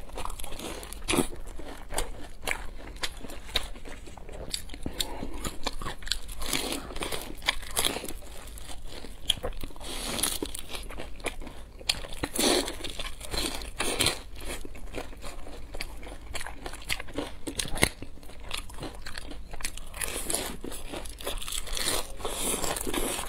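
Close-miked biting and chewing of crisp deep-fried dumplings: an irregular run of crunches from the fried wrapper, with chewing between bites.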